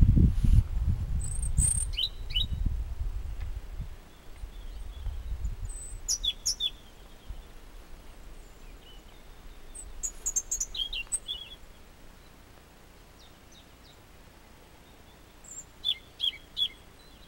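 European robin singing: four short, high phrases of chirps and trills a few seconds apart. A low rumble, the loudest sound, runs under the first few seconds and then fades.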